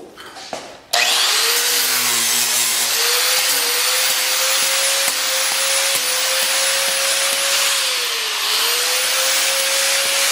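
Angle grinder switched on about a second in. Its motor whine climbs as it spins up, then it runs at full speed with a loud hiss. The pitch dips once near the end and recovers.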